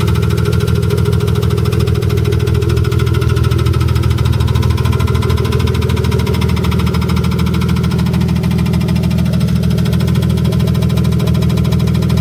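BMW S52 3.2-litre straight-six running steadily, heard with the hood closed, with a rapid knocking/ticking from the engine.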